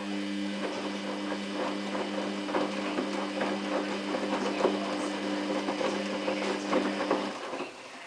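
Samsung WF8804RPA front-loading washing machine turning its drum during the heating phase of a 95 °C wash: a steady motor hum with wet laundry knocking and tumbling inside. The motor stops about seven seconds in.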